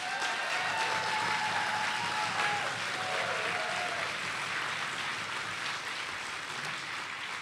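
Audience applauding, the clapping slowly tapering off toward the end.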